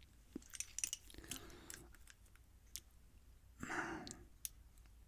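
Faint, scattered small clicks of tweezers and lock parts as pins and springs are picked out of a disassembled lock core, with a short breathy sound a little past the middle.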